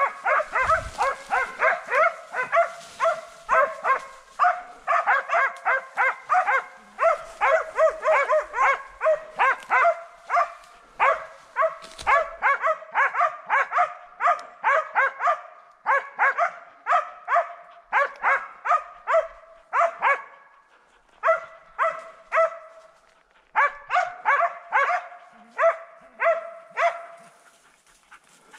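Hunting dogs barking rapidly and continuously, several barks a second and often overlapping: hounds baying at a wild boar. The barking pauses briefly twice in the second half and dies away near the end.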